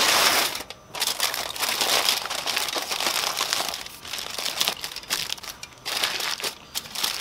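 Aluminium foil crinkling and crumpling as hands wrap it tightly around a pork roast and press it down, in irregular bursts, loudest at the start with a short break about a second in.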